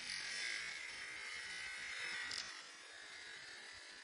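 Sound of running in place in a garage, slowed to a fifth of normal speed and stretched into a long buzzing hiss. A short, sharper hit comes a little past the middle, and the hiss fades after it.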